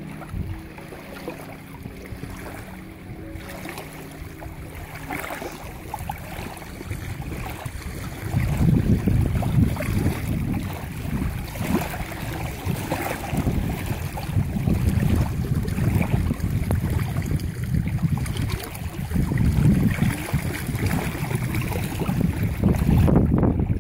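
Wind blowing across open water and buffeting the microphone in gusts, a low rumble that grows much stronger after several seconds, over the wash of small choppy waves.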